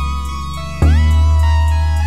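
Background music: a guitar-led track over deep bass notes, with a new chord struck sharply a little under a second in.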